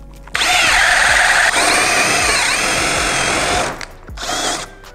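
Ryobi RAD1801M cordless angle drill boring a 25 mm high-speed-steel bit into a pine beam. It runs under load for about three seconds, its motor whine dipping and recovering as the bit bites. After a brief stop there is a short second burst.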